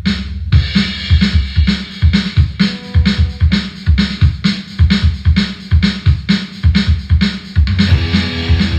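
Outro music with a driving electronic drum beat and heavy bass.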